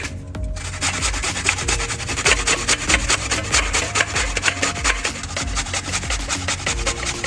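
Fresh coconut scraped up and down the fine side of a stainless steel box grater: a fast, even run of scraping strokes, several a second, starting just under a second in.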